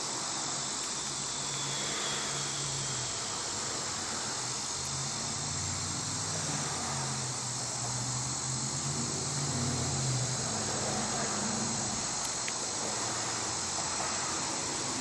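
Steady chorus of crickets or other insects trilling, with a low droning hum underneath that wavers in pitch and swells in the middle.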